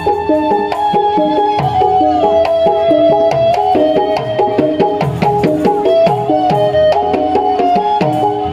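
Ondel-ondel accompaniment music: a hand-played barrel drum keeps a quick rhythm, its low strokes sliding down in pitch, under a sustained melody that steps from note to note.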